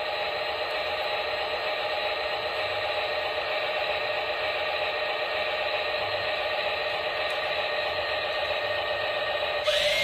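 Remote-control toy excavator running, a steady mechanical whirring hum.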